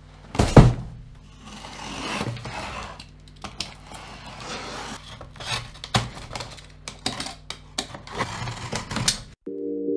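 A cardboard box set down with a heavy thump, then a utility-knife blade slitting the packing tape along the box's seam, with scraping, rustling cardboard and scattered sharp clicks of handling. About half a second before the end it cuts to calm music of sustained, ringing tones.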